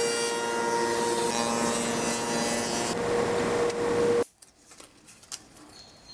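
H1763 spindle moulder running with a steady whine as a board is fed past its cabinet-door frame cutter, shaping the profile. About four seconds in the machine sound stops abruptly, leaving faint rubbing and small taps of hands on the moulded wood.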